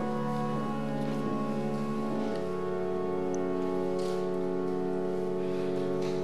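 Church pipe organ playing slow, sustained chords, moving to a new chord about two seconds in and holding it.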